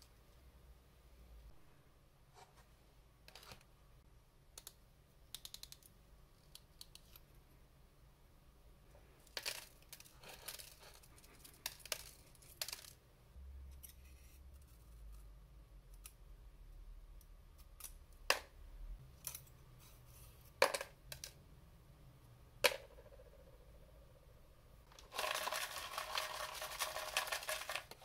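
Small handling sounds of pen restoration: a steel pick scraping the hardened remains of an old rubber ink sac out of a hard rubber fountain pen barrel, with scattered sharp clicks of pieces and tools against the pen and a plastic dish. Near the end comes a louder rustling that lasts about three seconds.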